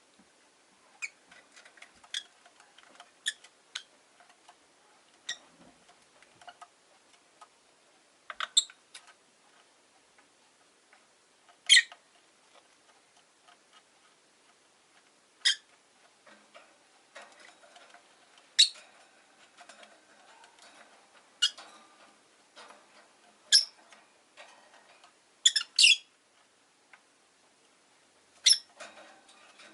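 Rosy-faced lovebirds giving short, sharp chirps every few seconds, some in quick pairs, with faint ticking and rustling between the calls.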